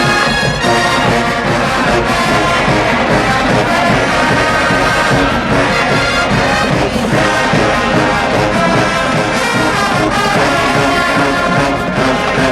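HBCU marching band playing loudly, a full brass section led by trombones and trumpets over a steady drum beat.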